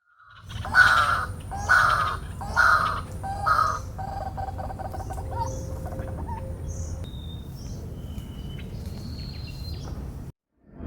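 A bird giving four loud, rough calls about a second apart, followed by softer chirps and thin whistles from other birds over a steady low background noise.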